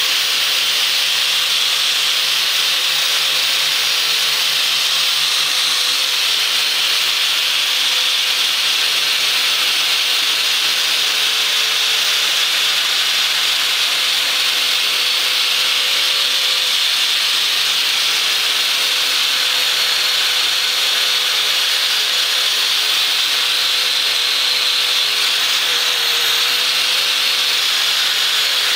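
Angle grinder with a wire wheel brush running steadily, its wires making a steady hiss as they are run lightly over an old axe head's steel to strip surface rust and dirt.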